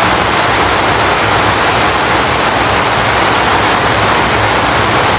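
Heavy storm rain pouring down in a steady, loud rush.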